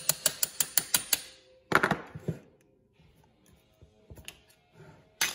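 Quick, even metal-on-metal taps, about five a second, driving a putty knife into the gasket joint between a Rochester Quadrajet carburetor's base plate and main body. The taps stop about a second in. A single louder knock follows, and another sharp knock comes near the end.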